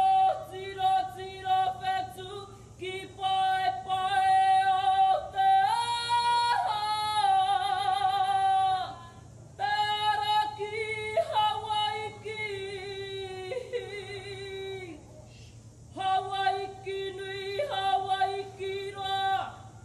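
A woman singing unaccompanied in Māori as part of a kapa haka performance, in long held phrases with short breaks between them. The pitch steps up a little over 5 seconds in and wavers on the held note that follows.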